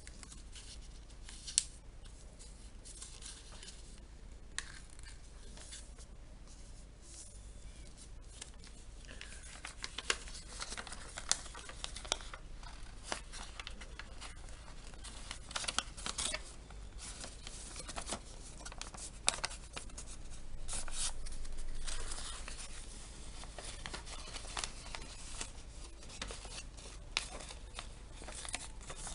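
Paper being cut with scissors and handled: irregular snips and small clicks, with paper rustling and crinkling, and a longer rustle about twenty seconds in.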